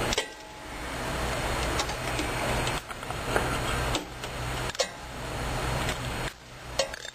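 Hand tools working a bolt at the motorcycle's lower triple tree: scattered metal clicks and clinks over a steady background hum and hiss that breaks off abruptly several times.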